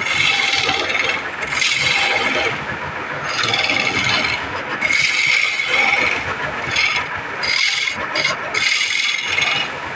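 Wooden spindle turning on a wood lathe while a hand-held chisel cuts along it: a scraping cut in repeated strokes, each under a second long, with the lathe motor running underneath.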